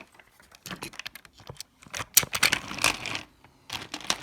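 Irregular run of sharp clicks and light rattling, loudest around the middle, from small hard objects being handled.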